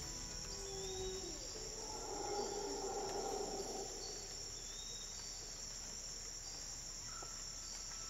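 Rainforest insect chorus: a steady high-pitched drone, with faint short chirps repeating every couple of seconds. A softer, lower rushing sound swells and fades around the middle.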